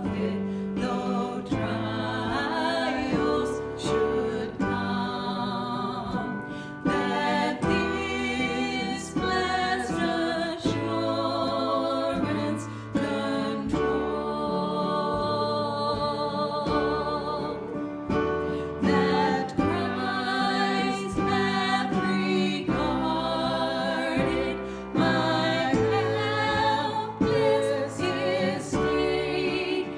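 Gospel worship song: singing with vibrato over sustained instrumental accompaniment.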